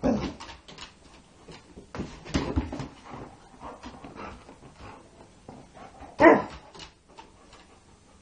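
Labrador retriever whining and giving a single loud bark about six seconds in, between light knocks and scrapes as she noses and paws a ball across a hardwood floor.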